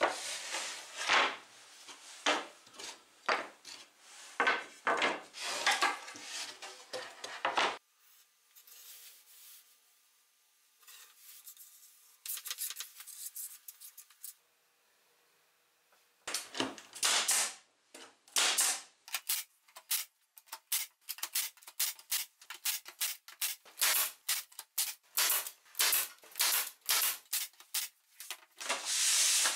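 Pine slats and a board being handled, set down and knocked together on a wooden tabletop, then a quiet stretch of faint scraping as glue is spread with a plastic spreader, then a long run of quick sharp clicks and knocks.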